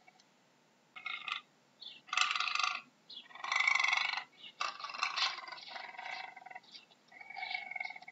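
Puma (cougar) vocalizing: a series of about five short, pitched calls with brief pauses between them, the loudest a little past the middle.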